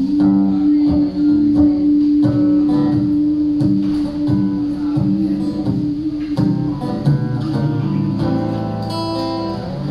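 Acoustic guitar picked and strummed, with a male voice holding one long sung note that stops about six and a half seconds in; the guitar plays on alone after.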